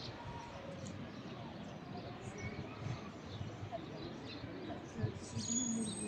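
Steady outdoor background noise with scattered faint bird chirps, a few clearer calls near the end.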